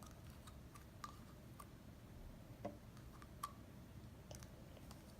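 Faint, scattered light clicks and taps of a spoon working slime out of its container, a few slightly louder taps among them.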